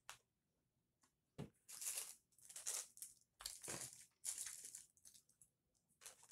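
A person chewing a mouthful of food, a run of short crackly chewing sounds roughly once a second between about one and five seconds in.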